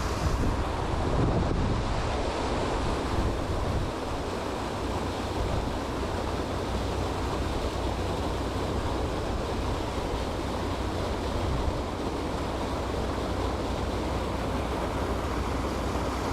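Steady rush of creek water flowing over rocks and a low falls, with wind rumbling on the microphone.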